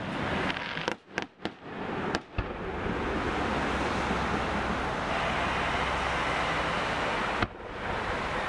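Fireworks shells bursting: a quick cluster of four or five sharp bangs about a second in, and a single bang near the end, over a steady rushing noise.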